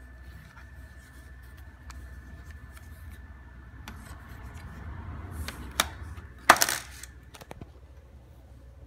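Handling noise: scattered small clicks and taps, a sharp click almost six seconds in, then a louder, short clatter about half a second later.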